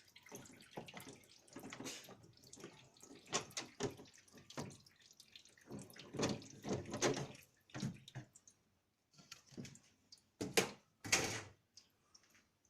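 Screws being backed out by hand from a refrigerator's back panel and handled: a string of irregular clicks, scrapes and small knocks, the loudest two near the end.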